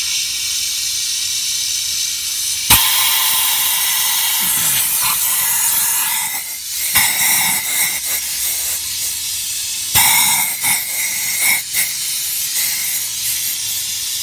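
Compressed air hissing from an air-line tool held in an engine's spark plug hole, with a sharp pop about three seconds in and again about ten seconds in as the air blows the tool back out of the hole. The tool being pushed out shows the cylinder's valves are closed.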